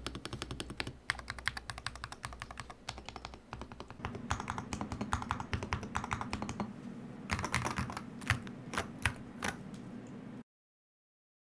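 Typing test on an Akko MOD007B HE PC Hall effect magnetic-switch keyboard with freshly lubed stabilizers: fast runs of key strokes, many per second, growing louder about four seconds in, with a few heavier single strokes near the end. The sound cuts off abruptly shortly before the end.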